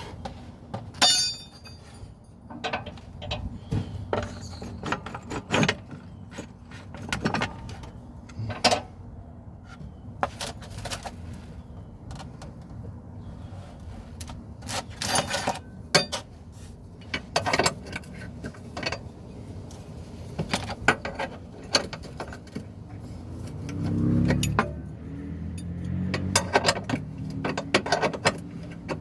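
Metal hand tools and loose screws clinking and clattering irregularly, many separate sharp clinks, with a brief pitched whir near the end followed by a low steady hum.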